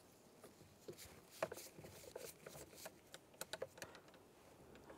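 Faint, scattered clicks and scrapes of a T20 Torx driver turning a screw out of the plastic steering-column cover.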